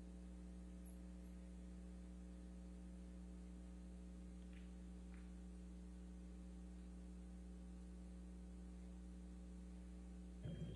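Low, steady electrical hum at near-silence level, with a couple of faint ticks.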